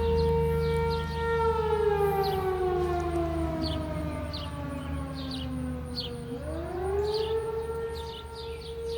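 Fire siren sounding a steady tone, then winding down in pitch for about five seconds before winding back up to full pitch and holding.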